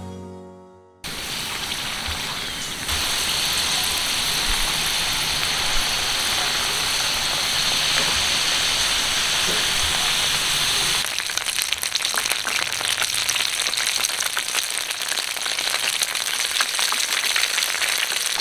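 Dumplings deep-frying in hot oil: a steady sizzle that starts suddenly about a second in, grows louder about three seconds in, and turns to busy crackling and popping from about eleven seconds in.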